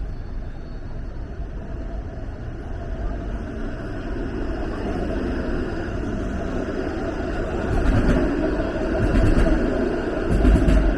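City street traffic going by, building to louder low passes of vehicles close by about eight seconds in and again near the end.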